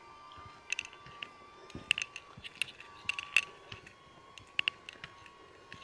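Light, sharp clicks and taps at an uneven pace, roughly one a second and sometimes in quick pairs, over a faint steady high hum.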